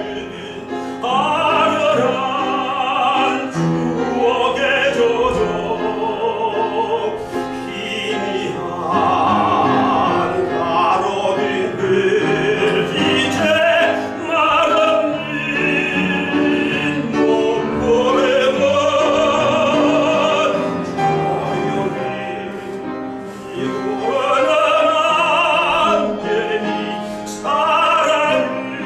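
Tenor singing a Korean art song in classical operatic style, holding long notes with wide vibrato over instrumental accompaniment.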